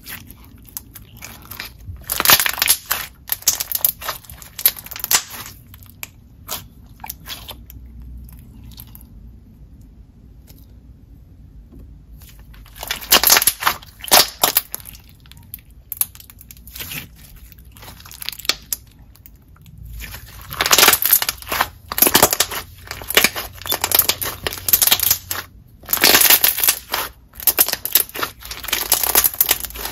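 Nickelodeon cookie dough slime, thick and glossy with beads mixed in, being stretched, pressed and kneaded by hand: bursts of quick wet clicks and air-bubble pops with short quieter pauses between.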